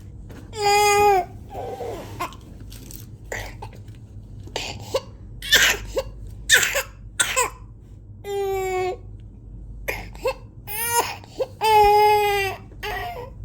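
A child with whooping cough (pertussis) coughing in rapid runs of short, sharp coughs. The coughing fits are broken three times by a long, high-pitched drawn-out cry.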